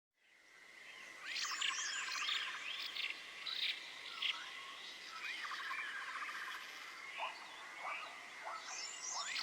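A wild chorus of chirping and swooping calls, repeated in quick phrases over a steady high-pitched hum, fading in during the first second.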